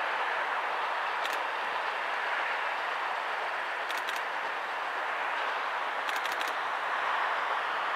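Distant steam locomotive working a train, heard as a steady rushing noise, with a few faint high ticks over it.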